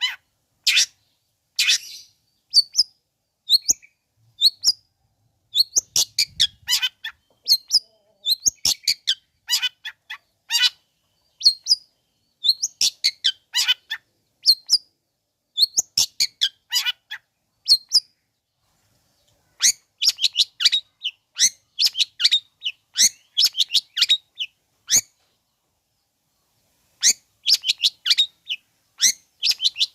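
Long-tailed shrike (cendet) singing in rapid bursts of sharp chirps and chattering notes, phrase after phrase with short pauses between them and a longer break of about two seconds near the end. This is an aggressive 'pancingan' song meant to provoke other shrikes into answering.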